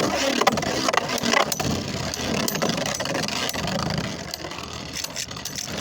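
Beyblade Burst tops spinning and colliding in a plastic stadium: a steady whirring hiss with rapid clicks of the tops striking each other and the stadium walls, easing slightly near the end.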